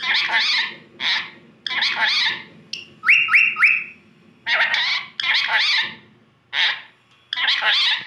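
Indian ringneck parakeet chattering in a string of short, raspy calls, with three quick rising chirps about three seconds in.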